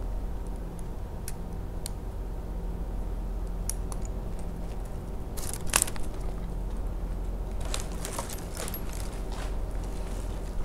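Tree climber's rope and metal climbing hardware being handled: scattered light clicks and clinks, a brief louder crackling scrape about five and a half seconds in, and a denser run of rustling and crackling from about seven and a half seconds, over a steady low hum.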